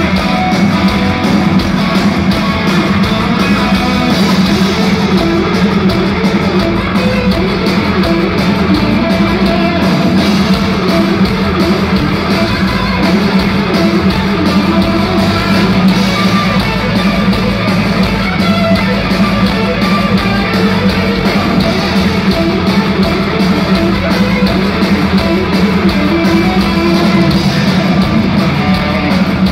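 Live rock band playing loudly, led by an electric guitar playing a lead line with bends and vibrato over drums and a steady low bass.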